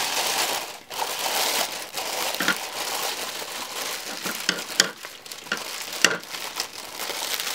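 Plastic packaging crinkling and rustling as an item is pulled out of its box, with a few small clicks and knocks.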